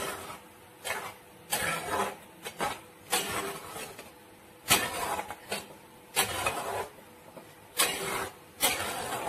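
Steel ladle stirring thick okra and coconut gravy in a pan: irregular scraping strokes against the pan, about one a second.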